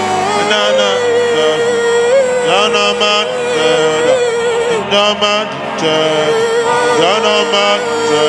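Music with a voice chanting long, wavering held notes over sustained accompaniment.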